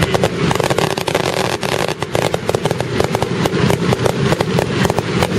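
Fireworks going off in a dense, rapid run of sharp pops and crackling bangs, many a second, over a low rumble.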